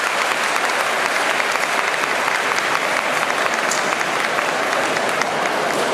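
Large crowd of spectators applauding steadily, a dense even patter of clapping.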